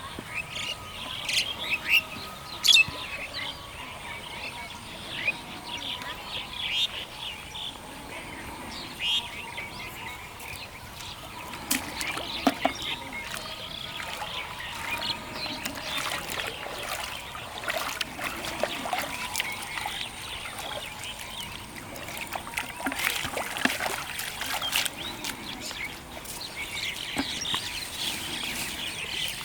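Small birds chirping again and again, with scattered splashes and trickling water.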